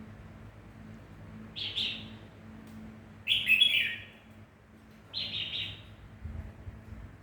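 Pet bird chirping: three short, high calls about two seconds apart, the middle one loudest with a falling note at its end.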